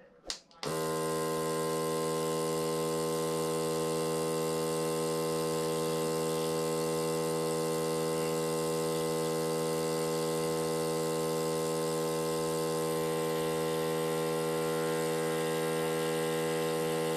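A mini 12-volt airbrush compressor is switched on with a click and runs steadily with no hose attached. It gives a constant electric hum with a buzzy whine on top, measured at about 73 decibels.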